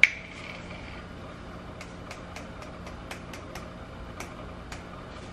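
A sharp click, then about a dozen light, irregular ticks over a few seconds as nutmeg is shaken out of a small spice jar over a pan. A low steady hum runs underneath.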